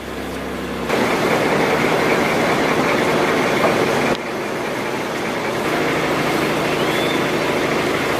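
Outrigger boat's engine running steadily under a broad rush of noise as the boat moves over the water. The sound steps louder about a second in and shifts again about four seconds in.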